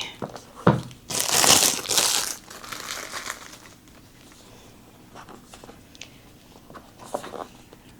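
Packaging crinkling and rustling as a parcel is unwrapped by hand, loudest for about a second and a half just after the start, then quieter handling and small ticks.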